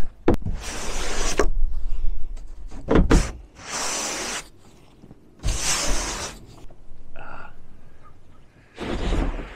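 Long-handled snow brush pushing wet snow across rooftop solar panels: four or five swishing scraping strokes, with a few sharp knocks in between.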